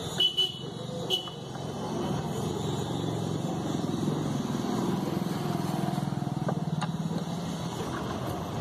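A few sharp metal clinks of a T-handle spanner on the scooter's clutch-cover bolts in the first second or so, over a steady low motor-vehicle engine drone.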